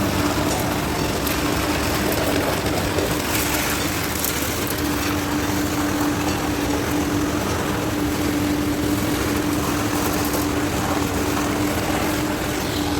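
Concrete boom pump truck's engine running steadily under the pour, a constant hum over a wash of machine noise.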